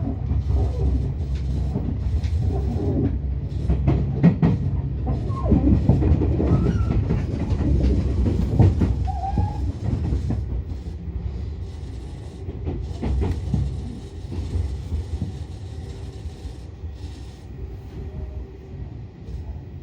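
Tobu Tojo Line electric train running on the rails: a heavy rumble with irregular wheel knocks over rail joints and a few brief wheel squeals. It fades steadily after about ten seconds as the train draws away.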